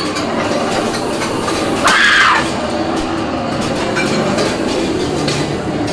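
Haunted-house attraction soundscape: a steady, loud, noisy rumble of effects, with one short shrill squeal that rises and falls in pitch about two seconds in.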